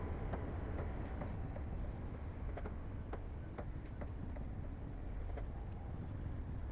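Diesel engine of heavy earthmoving machinery running steadily with a low rumble, with scattered light clicks and clanks over the first five seconds or so.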